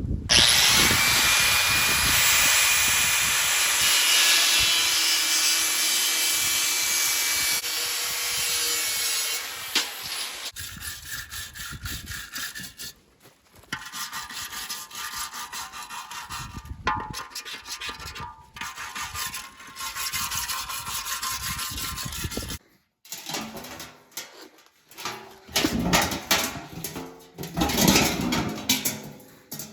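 Metal being cut by tools, in a few separate stretches. First comes a steady loud cut with a high tone running through it for about ten seconds. Then fast rasping strokes follow, broken off suddenly about two-thirds of the way in.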